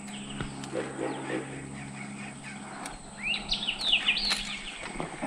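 A bird calling: a quick run of rising chirps about three seconds in, over a steady low hum.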